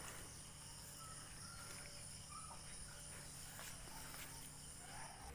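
Faint, steady chirring of insects.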